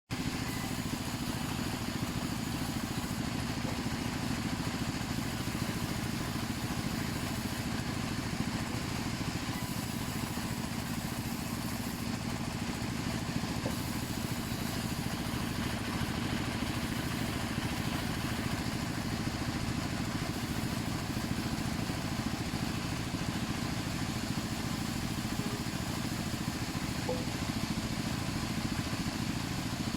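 Plywood cutting machine running steadily, its motor giving an even, continuous hum with no pauses.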